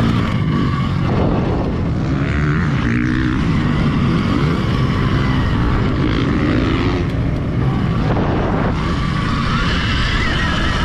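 Wind rushing over a helmet camera, with the whine of an Alta Redshift MXR electric dirt bike's motor rising and falling with the throttle.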